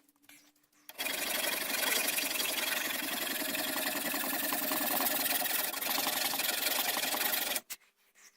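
Steady, rapid rasping of a tool shaping the horn muzzle end of a long rifle's wooden stock. It starts about a second in and stops abruptly shortly before the end.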